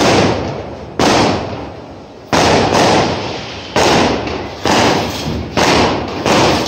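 Firecrackers going off one after another, about nine sharp bangs at uneven intervals, each fading out with a long echo.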